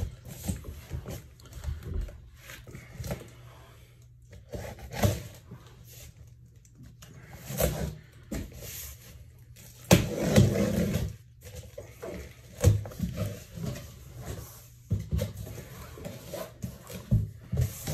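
Large cardboard shipping box being handled and pulled open: irregular scraping, rubbing and knocking of cardboard, loudest for about a second near the middle.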